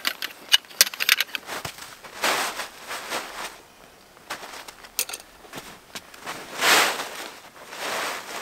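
Steel nail tent stakes clinking together in a gloved hand, a quick run of sharp clicks, then several longer crunches in snow as he works stakes out of frozen ground, the loudest about six and a half seconds in.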